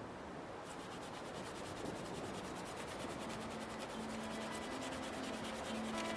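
Steady scratchy rubbing noise, like sanding or scraping. Faint low sustained notes come in about halfway through.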